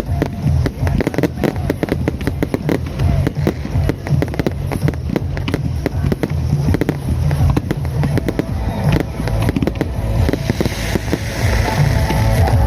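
Fireworks going off in a dense, rapid string of crackles and bangs over a heavy low rumble.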